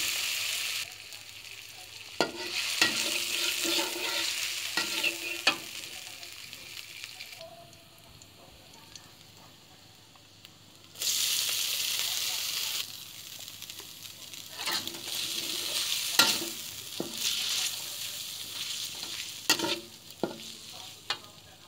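Stir-frying in a wok: fish balls and fish cake sizzling in oil and chilli paste while a metal spatula scrapes and clacks against the pan. The sizzle swells and fades, drops low for a few seconds in the middle, then comes back loud.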